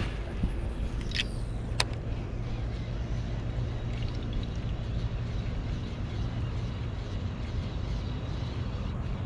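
Casting a lipless crankbait on a baitcasting rod and reel: a few sharp clicks and a short swish in the first two seconds, then a steady low rumble while the lure is reeled back.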